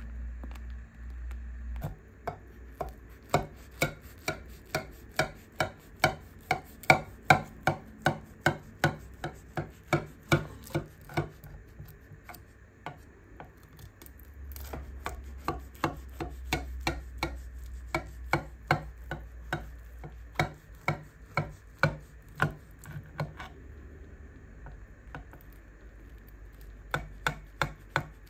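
A knife cutting through a cheese-crusted potato and ground beef bake in a glass dish, in quick sawing strokes, each stroke a sharp click at about two a second. It comes in two long runs with a pause of a few seconds between them, then a short run near the end.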